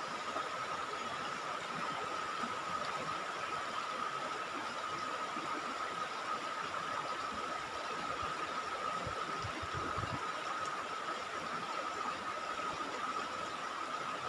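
Shallow river running over stones: a steady rush of water, with a steady high-pitched tone alongside it.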